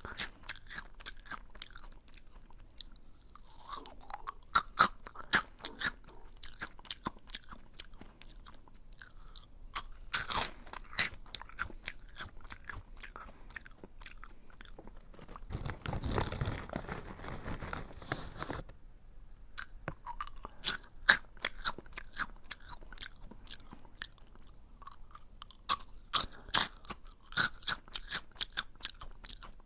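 Close-miked crunchy chewing of a hard curry-flavoured snack: rapid crackling crunches, with a softer, steadier noisy stretch of about three seconds just past halfway.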